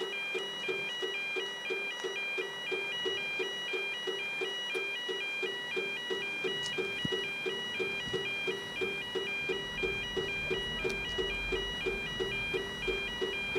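Level crossing warning alarm sounding: a high electronic beeper alternating between two tones, over a lower tone pulsing about three times a second. A low rumble from the approaching steam locomotive builds in the second half.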